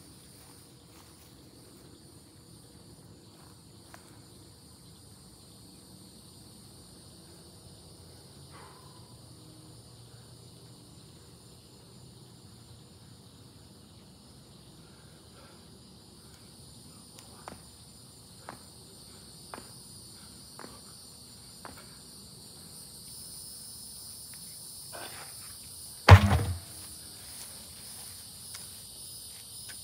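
Steady high-pitched insect chorus, growing louder in the last third, with a few light footfalls and clicks. Near the end a large truck tire lands on the ground with one heavy thud during a tire flip.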